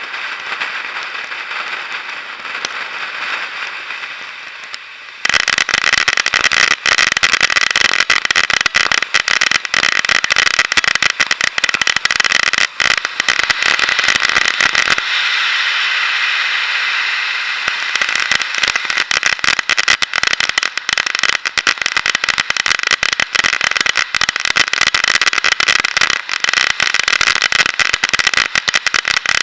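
Ground firework fountain spraying sparks: a steady hiss at first, turning about five seconds in to loud, dense crackling. There is a smoother hissing spell about halfway through, then dense crackling again.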